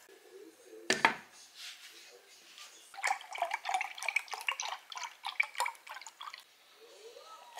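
Kitchen handling noise: a single knock about a second in, then a few seconds of quick, irregular light clicks and taps.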